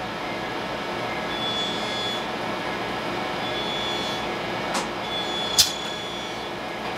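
Steady shop-floor machinery noise of a shoe factory, with a faint high whine coming and going and two sharp clicks near the end, the second the louder, as a shoe is set into the sole press.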